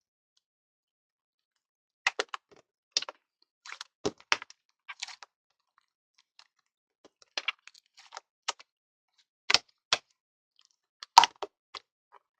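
Slime being handled and pressed, giving sharp irregular clicks in scattered clusters that start about two seconds in.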